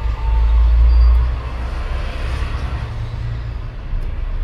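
Deep background rumble, loudest for about the first second.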